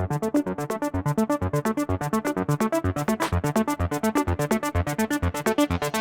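Electronic dance music: a fast, even synthesizer pattern with a steady hi-hat beat.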